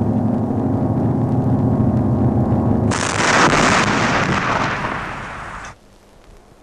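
Film soundtrack: a low steady drone of several layered pitches for about three seconds, then a loud harsh rushing burst of noise that lasts under three seconds and cuts off suddenly.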